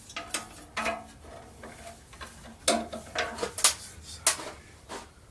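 Small hard objects clinking and clattering as they are handled, in a string of irregular sharp clicks and knocks.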